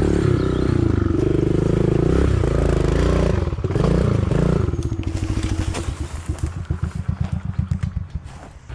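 Small four-stroke pit bike engine revving close by, its pitch rising and falling several times, then dropping back to a slow, lumpy idle with separate firing pulses for the last few seconds.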